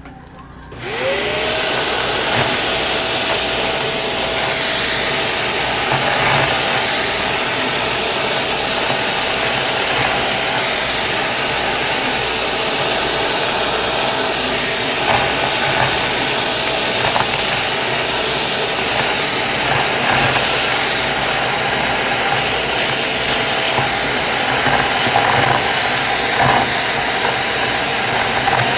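Shark vacuum with a crevice tool switching on about a second in: its motor whine rises and settles into a steady tone over rushing suction. Scattered light crunching comes through it as confetti and sequins are sucked up the nozzle.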